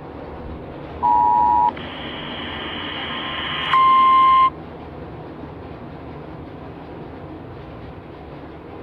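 Emergency Alert System tones on a radio broadcast. A short two-note steady tone comes about a second in, then a louder single steady tone for just under a second near four seconds in. Steady radio hiss follows.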